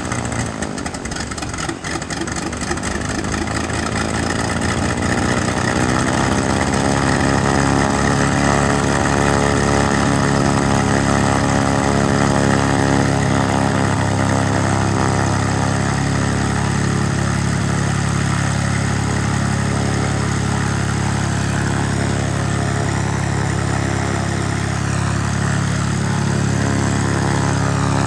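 Light aircraft's piston engine and propeller running just after start, its speed shifting and settling over the first few seconds, then running steadily at low power while warming up to operating temperature.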